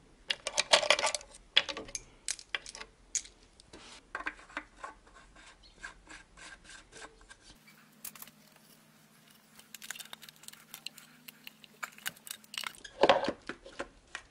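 A metal engine valve cover being handled and lowered onto the cylinder head: rubbing, scraping and light clinks and clatter, loudest at the start and again near the end.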